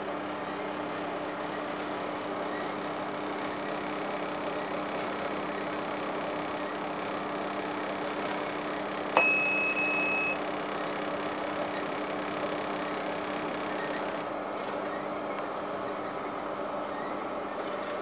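Panasonic NE-1880 commercial microwave oven running with a steady hum. About halfway, a click and then a single high beep of just over a second from the handheld microwave leakage meter, its alarm for radiation leaking around the oven door.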